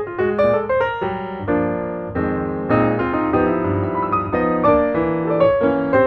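Background piano music: a few quick single notes, then slower held chords.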